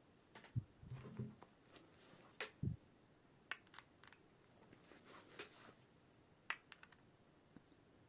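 Faint handling noise of a braided USB-C cable's metal plug and a phone in the hands: scattered soft clicks and taps, with two low thumps in the first three seconds.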